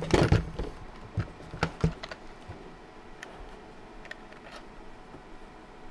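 Handling noise from a metal electrical box fitted with receptacles and a panel meter as it is turned over on a workbench: a quick run of knocks and clicks in the first two seconds, then a few faint ticks.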